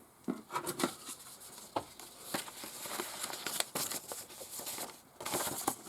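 Paper instruction sheets and pamphlets being handled and rustled, with scattered light clicks and taps. There is a louder rustle of paper near the end.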